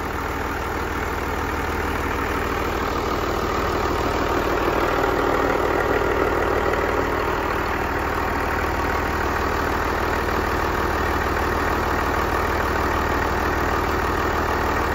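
Dongfeng Cummins 6BTA5.9-C180 turbocharged inline-six diesel engine running steadily.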